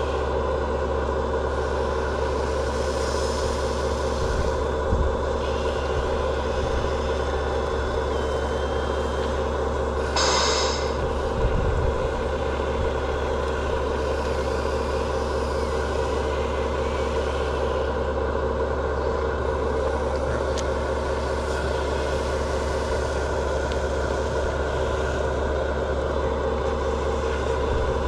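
Radio-controlled model construction machines working, with a steady diesel-like engine drone with a low hum, and a few light knocks. A short hiss comes about ten seconds in.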